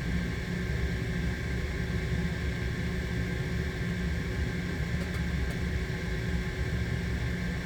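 Steady low hum and rumble of running building HVAC machinery, with two faint clicks about five seconds in.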